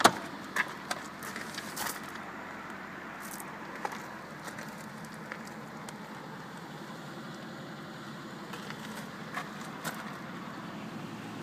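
A car door opening with a sharp latch click, followed by a few small clicks and taps, then two more light clicks near the end, over steady background noise.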